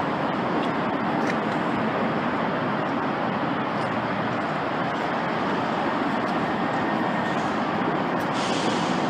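Steady traffic noise from vehicles on the elevated highway overpasses.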